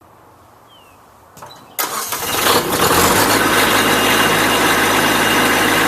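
An engine starts up about two seconds in and then runs steadily.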